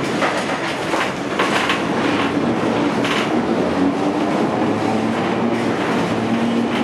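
Vintage electric tram running slowly along street track, heard from inside its wooden front cab: a steady low hum with rattling, and a few sharp clicks from the wheels on the rails.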